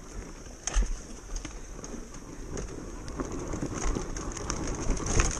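Footsteps and scuffs on a dirt jungle trail, with irregular knocks, the sharpest about a second in and more near the end. Behind them runs a steady high-pitched insect buzz.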